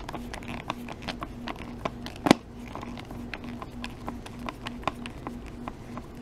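Screwdriver turning a screw out of a Fluke 87 III multimeter's plastic back case: a run of small, irregular clicks and ticks, with one sharper click about two seconds in.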